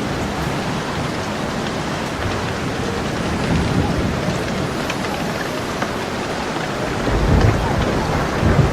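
Steady rain falling, with a low rumble of thunder swelling about seven seconds in.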